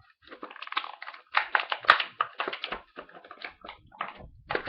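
Plastic and cardboard toy packaging being handled and opened to take out an action figure: irregular crinkling and clicking, busiest in the middle.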